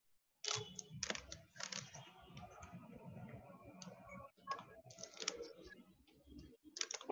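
Irregular clicking and clatter of typing on a computer keyboard, starting about half a second in.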